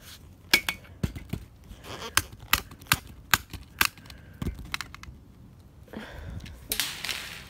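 Handling noise from an iPod Touch 2nd gen: a run of sharp clicks and light knocks, about a dozen over four seconds, then rustling noise near the end.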